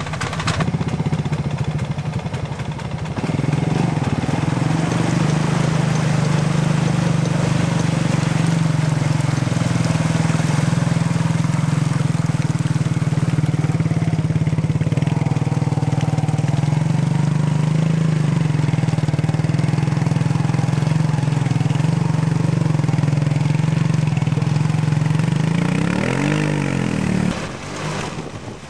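Suzuki King Quad 300 ATV's single-cylinder engine running steadily under load as it churns through deep mud and water, with water splashing around it. Near the end the engine revs up and down a few times.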